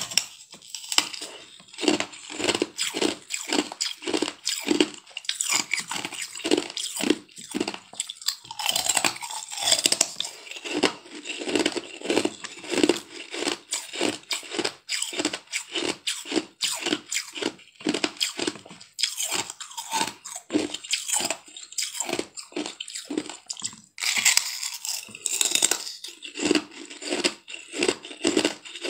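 Thin sheets of ice being bitten and chewed close to the mouth: steady crunching about twice a second, with louder crackling bites breaking off fresh pieces now and then.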